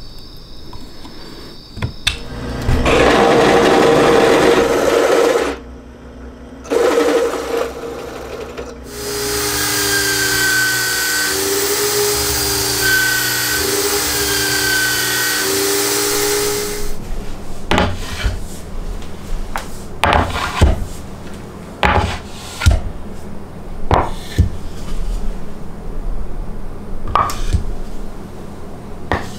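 Power-tool work on plywood: two short bursts of tool noise, then a corded Makita drill in a drill-press jig running steadily for about eight seconds as it bores into plywood. It stops suddenly and a string of sharp wooden knocks follows.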